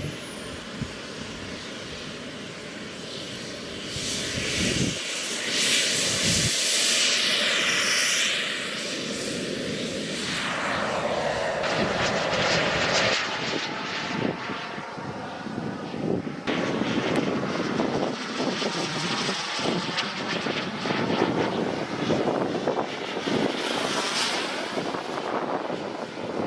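Model turbine jet engine of an Elite Aerosports Havoc SS RC jet running, a high thin whine over a jet rush. The rush swells louder about four seconds in and sweeps in pitch as the jet passes.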